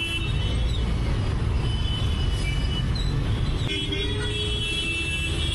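Busy road traffic: engines rumbling, with several vehicle horns sounding long, steady, overlapping notes. The set of horns changes abruptly a little past halfway.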